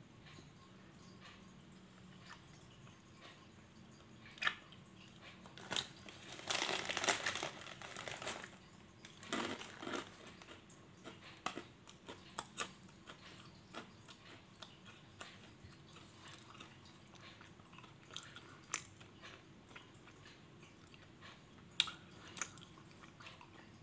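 Someone chewing a crunchy snack close to the microphone: scattered crisp crunches, with a longer stretch of crunching about six to eight seconds in and another short one around ten seconds.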